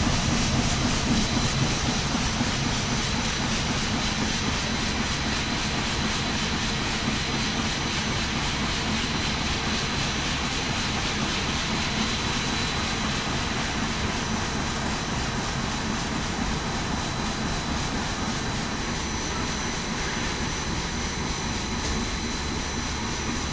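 Corn flakes production line machinery running steadily: a constant roar with a thin, steady high whine above it.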